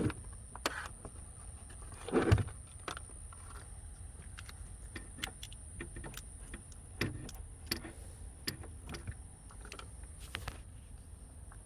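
Scattered small clicks and taps from handling a BMW battery safety switch and multimeter probes, with one louder knock about two seconds in.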